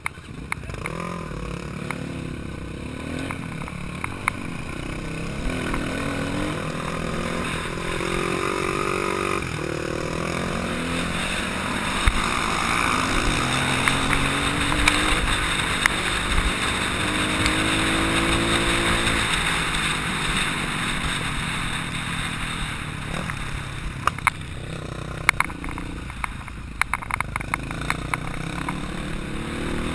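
Dirt bike engine, heard close from the camera rider's own bike, repeatedly revving up in pitch and dropping as it accelerates and shifts through the gears. A steady rush of noise builds in the middle, and there are sharp knocks now and then, mostly near the end.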